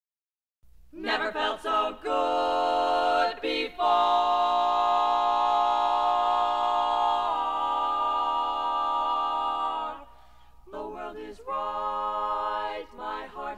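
A women's vocal group singing a cappella in close harmony, from a 1962 recording: a few short sung notes, then a long held chord that shifts once, a brief pause about ten seconds in, and the singing picks up again.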